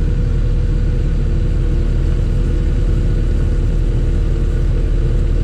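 Kubota skid steer's diesel engine running steadily as the machine drives its newly fitted track around.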